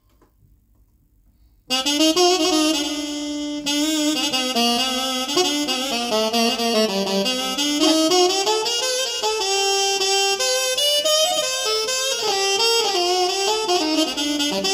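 Korg Nautilus workstation keyboard playing a saxophone sound: a melodic line played over held notes, starting after a brief silence about two seconds in.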